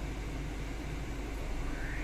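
Steady low rumble and hiss inside a car's cabin. Near the end, a rising sound starts from the tablet's speaker as the episode's soundtrack begins.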